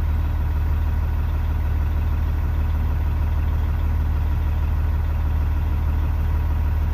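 Semi truck's diesel engine idling, a steady low hum with no change, while its engine-driven air compressor builds air pressure.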